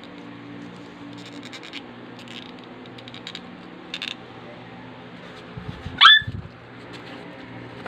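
Small plastic clicks and rustles as a mini figure is handled and fitted onto its red plastic display base, over a steady low hum. About six seconds in comes one short, sharp squeak that rises in pitch, the loudest sound, with soft thumps around it.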